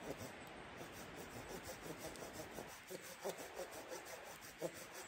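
Folding hand saw with a coarse 7-teeth-per-inch carbon-steel blade cutting through dead wood, in rhythmic back-and-forth strokes, with a couple of sharper knocks past the middle.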